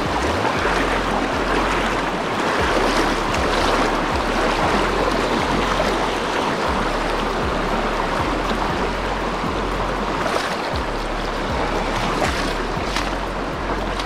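Steady rush of a rocky mountain river, heard close up from mid-stream while someone wades across it, with a few brief splashes or knocks near the end.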